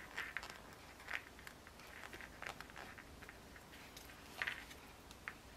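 Faint, scattered soft ticks and rustles of a crochet hook and thin yarn being worked through stitches while a decrease is crocheted.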